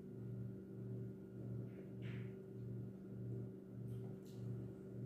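A steady low machine hum that swells and fades about every three-quarters of a second, with a soft rustle about two seconds in and a couple of faint clicks near the end.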